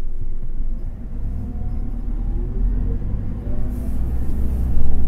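Inside a city bus on the move: steady low engine and road rumble, with a whine that rises in pitch as the bus gathers speed.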